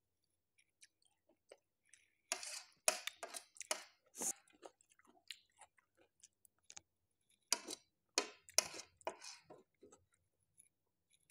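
Close-miked mouth sounds of a person eating spicy instant noodles: wet chewing heard as quick smacks and clicks. They come in two clusters, one starting about two seconds in and one starting after about seven seconds.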